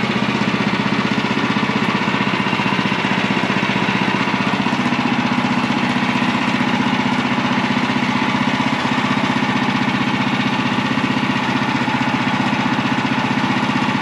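Small gasoline engine of a portable bandsaw sawmill running steadily with an even, unchanging beat.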